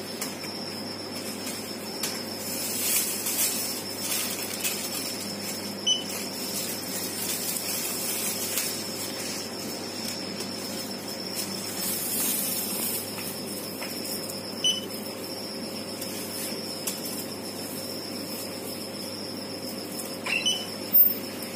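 Room tone: a steady hiss with a faint high-pitched whine, a few faint clicks, and a couple of sharper knocks about a second before the end.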